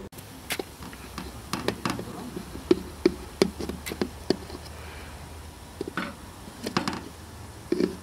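Knife blade pushed down into rice in a large aluminium pot, knocking against the pot in sharp irregular taps, about a dozen in all, over a steady low hum.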